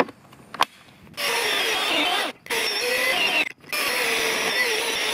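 A few clicks as the Milwaukee M18 cordless chainsaw is handled, then, about a second in, its electric motor and chain run loud as it cuts through a log, with two brief stops along the way.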